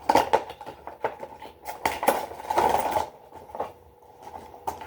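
A toy's packaging being opened and handled: a dense run of rustling and sharp clicks for about three seconds, then a few scattered clicks.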